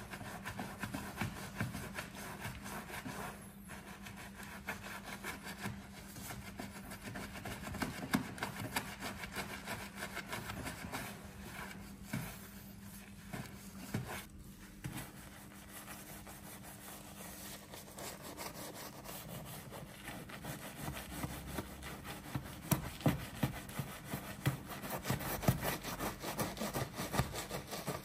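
Soft-bristled detailing brush scrubbing through soap foam on a car's bodywork, a rapid back-and-forth rubbing of bristles on wet paint. The strokes get louder and sharper over the last few seconds.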